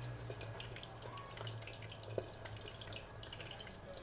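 Faint kitchen clatter: scattered light ticks and taps over a steady low hum, with one slightly louder tick about two seconds in.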